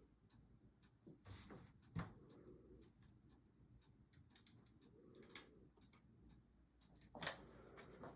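Quiet handling while a wooden wine rack is screwed to a wall: scattered light clicks and taps of tools and hardware, with a few louder knocks about two, five and seven seconds in.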